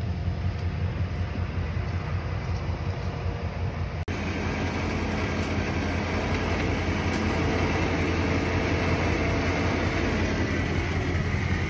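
Diesel engine of a John Deere crawler dozer running steadily close by as it tows a mud-stuck pickup on a chain. There is a deep, even rumble, with a momentary break about four seconds in, after which a steady hum joins it.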